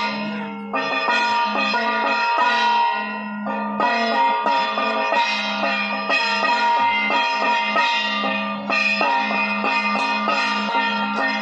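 Ringing metallic percussion struck several times a second over a steady low drone, the kind of bell-and-gong playing that accompanies an aarti.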